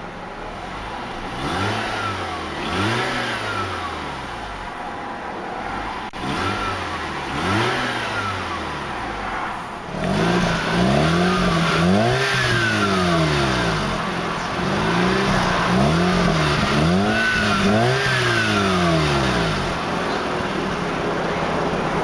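A 2004 Mazda RX-8's 1.3-litre Renesis twin-rotor rotary engine idling and being revved in repeated short blips, each rising and falling in pitch. About ten seconds in it is heard from behind the car at the twin exhausts, louder, with revs in quick succession, before it settles back to idle near the end. The blipping is what a rotary needs after starting to keep it from flooding.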